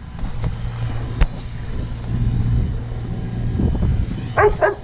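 Snowblower engine running steadily with a low, even hum. A single sharp click about a second in, and a short burst of voice near the end.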